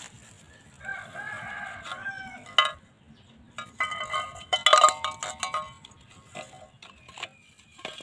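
A rooster crowing twice, about a second in and again near the middle, mixed with sharp metallic knocks and clinks of tin cans being handled; the loudest knock falls just after the first crow.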